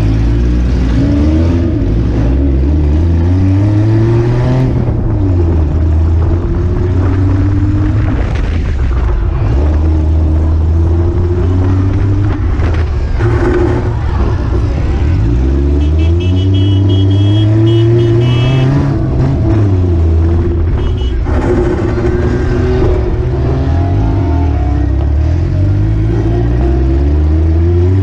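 Daihatsu Mira's engine revving hard, heard from on board the car, its pitch climbing and dropping again and again as it accelerates and lifts off around the track.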